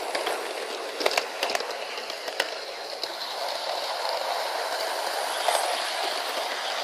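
Model 060-EA electric locomotive and coaches running on sectional model track, giving a steady running rattle with a cluster of sharp clicks about a second in and another near two and a half seconds.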